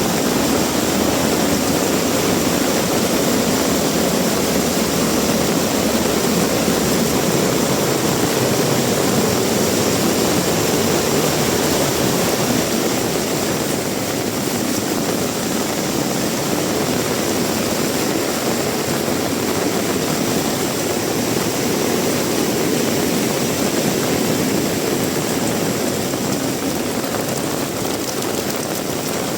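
Heavy rain pouring steadily, a dense even rush of noise that eases slightly about halfway through.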